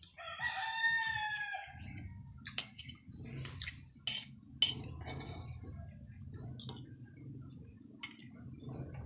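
A rooster crows once just after the start, a single call about a second and a half long. Then a metal spoon clicks and scrapes against a steel wok several times as food is eaten from it.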